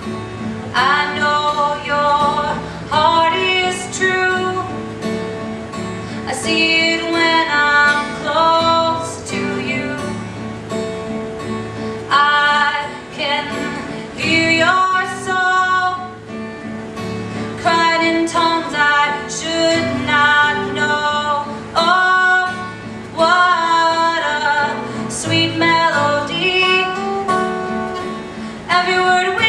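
Live band music: acoustic guitar strumming under a high melody line that slides up into its notes.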